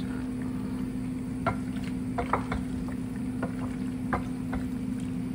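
Wooden spoon stirring thick, sauced penne in a stainless steel pot, with a few light knocks and scrapes against the pot, over a steady background hum.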